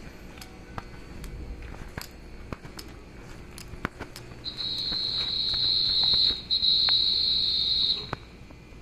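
Station platform beside a Keikyu New 1000 series train: scattered light clicks, then from about four and a half seconds a loud, steady high-pitched tone lasting about three and a half seconds, broken once briefly in the middle.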